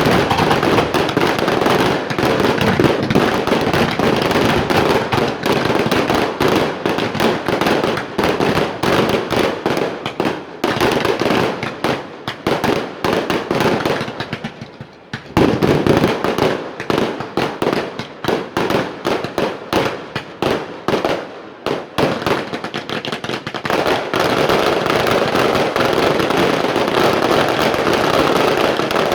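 Fireworks display going off in a rapid, continuous barrage of bangs and crackling. It thins out briefly about halfway through, resumes with a loud burst, and is dense again near the end.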